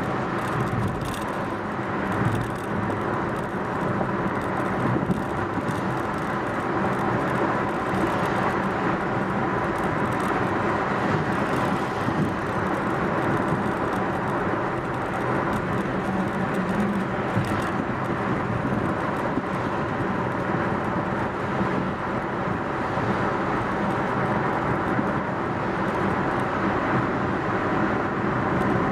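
Steady road noise of a car driving along at a steady speed: tyres rolling on asphalt with the engine running underneath.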